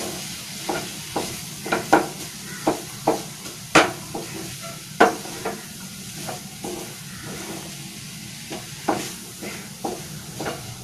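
Scrambled egg and vegetables sizzling in a non-stick frying pan, under irregular scrapes and taps of a spatula stirring them. The loudest strikes come about four and five seconds in, and the stirring eases off for a couple of seconds in the middle.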